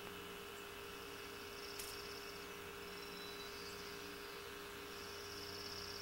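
Steady low hum with faint high, rapid trills repeating every second or two, and a single short click about two seconds in.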